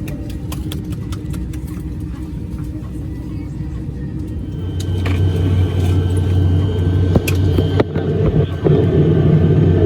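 Airliner cabin noise: a steady low rumble, a few clicks in the first second, then a louder steady hum setting in about halfway through.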